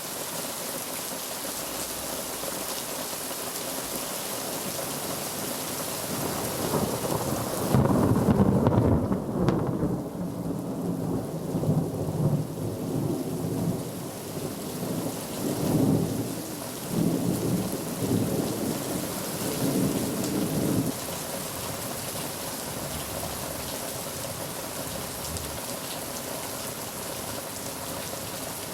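Steady heavy rain, with a thunderclap about seven seconds in that rolls on as low rumbling for some fifteen seconds, loudest at the start and then coming in waves before it dies away, leaving only the rain.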